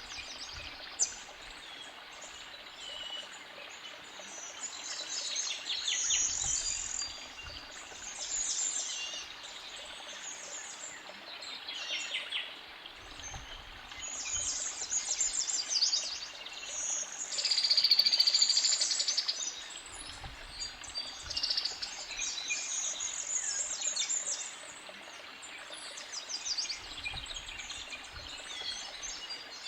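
Forest creek bubbling steadily under woodland birdsong, with many short trilling and chirping phrases from several birds. The loudest is a long high trill about 18 seconds in. There is one short sharp sound about a second in.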